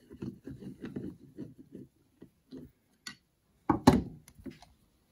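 Light clicking and ticking of a flathead screwdriver and small carburetor jets being handled in a Motorcraft 2150 two-barrel carburetor, with a sharper double knock just before four seconds in.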